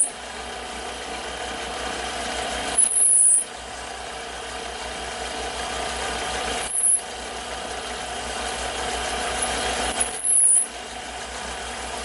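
Taig lathe running while a tool in the tailstock drill chuck cuts deeper into a cast-iron bore: a steady cutting noise that grows slowly louder, broken by a short louder burst about every three and a half seconds.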